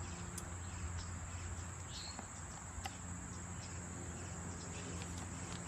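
Steady high-pitched insect chorus, an unbroken buzz, with a few faint ticks.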